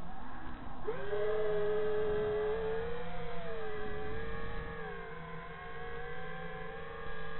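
FPV quadcopter's brushless motors and propellers whining, heard from on board the craft. The pitch jumps sharply about a second in as the throttle is punched, then holds steady, sagging and climbing again with the throttle.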